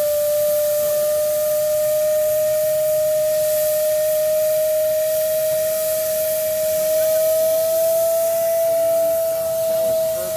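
1910 Stanley Steamer letting off steam: a steady whistling tone over a high hiss, its pitch lifting slightly about eight seconds in.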